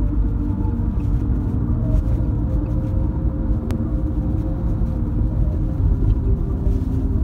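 Steady low road and engine rumble inside a moving car's cabin, with a single short click about three and a half seconds in.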